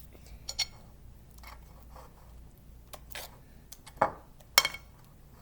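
Small clicks and knocks from handling the slime-making things (bowl, spoon, glue bottle), scattered and light, with two sharper knocks about four seconds in, half a second apart.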